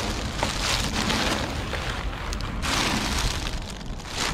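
Clear plastic trash bags rustling and crinkling as they are grabbed and lifted by hand, a steady noisy rustle with a brief lull about three seconds in.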